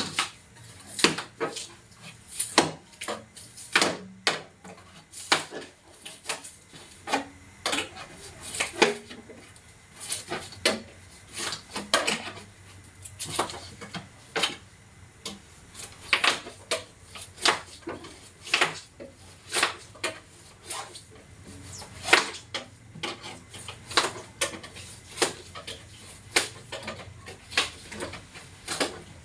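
Irregular clicks, knocks and clinks, about one or two a second, of hand tools and panel parts being handled while a two-door refrigerator's body is taken apart.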